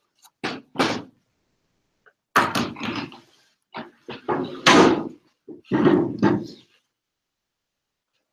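Knocks and thumps of a laptop and other things being set down and shifted on a classroom desk, in several clusters with the loudest about halfway through.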